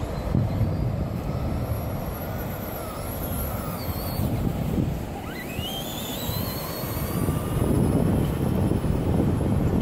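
Whine of a Traxxas BIGFOOT 1/10-scale RC monster truck's electric motor, rising and falling in pitch as the truck speeds up and slows, with a sharp climb about five seconds in. Heavy wind noise on the microphone is the loudest sound.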